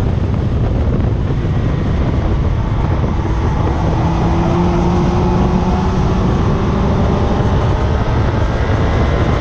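Heavy wind rush and tyre roar on an exterior-mounted camera on a car at track speed, with the engine note faintly audible underneath, slowly rising in pitch through the middle of the stretch.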